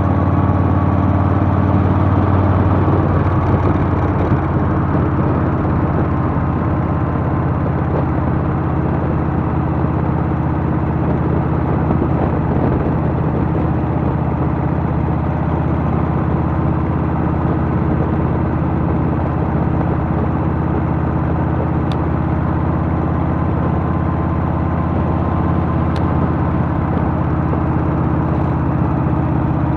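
Harley-Davidson Softail's Milwaukee-Eight V-twin engine running at a steady cruise, the exhaust note holding even with no shifts or revving.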